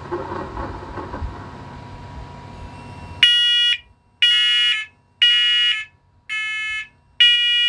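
Linked talking smoke alarms set off by a test-button press, sounding loud, high-pitched beeps about once a second, starting a little over three seconds in. Before the beeps there is only faint handling noise.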